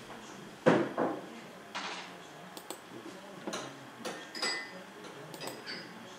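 A string of scattered clicks and light knocks, the loudest about two-thirds of a second in, several of the later ones with a short clinking ring like glass or crockery touching.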